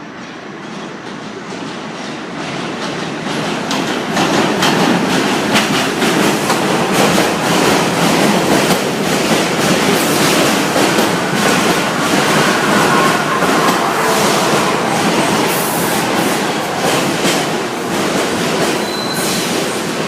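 New York City subway train running past on the rails, growing louder over the first four seconds and then holding steady, with rapid clacking of wheels over rail joints and faint wheel squeal.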